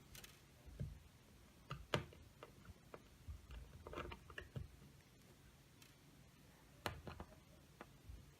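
Faint, scattered ticks and clicks of a small screwdriver working the tiny screws out of a laptop screen's mounting, with a few quick double clicks.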